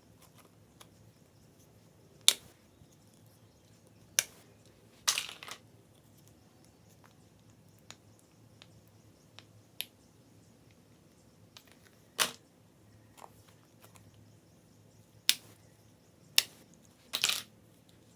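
Slime being kneaded and mixed by hand, giving sharp, sticky pops and clicks at irregular intervals, about eight in all, some in quick runs of two or three.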